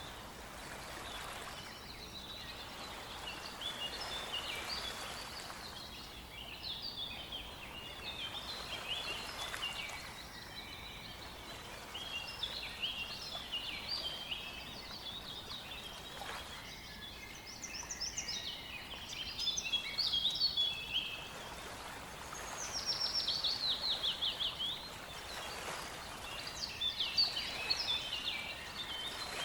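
Several songbirds singing, with short varied chirping phrases overlapping throughout and a rapid trill of falling notes about three-quarters of the way through, over a faint steady background hiss.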